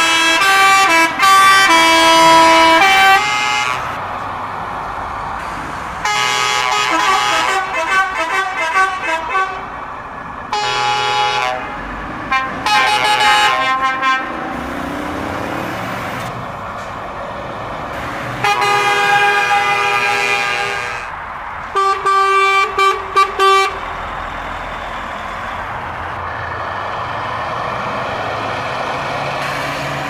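Truck air horns sounding in several bursts: musical horns running through quick multi-note tunes, a long held chord, then a run of short toots about two thirds of the way in. A steady rushing noise fills the gaps between the blasts.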